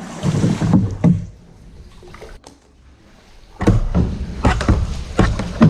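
Kayak paddling: several sharp knocks of a paddle against the kayak hull, with water sounds. A quiet stretch in the middle holds a single click, then a loud low rumble on the microphone starts from about three and a half seconds in, with more knocks over it.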